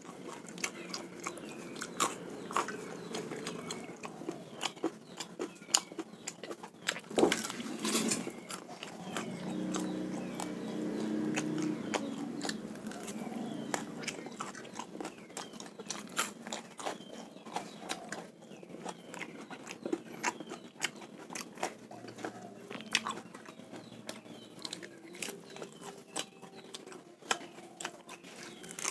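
A person chewing and biting raw salted snakehead fish up close, with many sharp wet mouth clicks and smacks.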